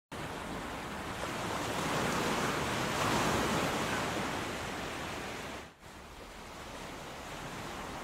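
Ocean surf washing onto a beach: a steady rushing that swells and eases, dips sharply just before six seconds in, then goes on more softly.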